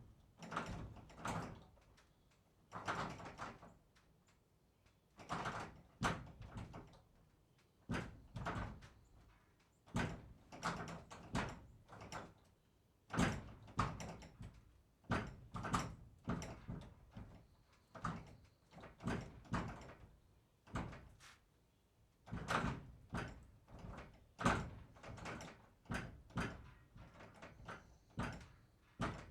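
Barn door being worked again and again: a long series of short knocks and rattles, about one or two a second.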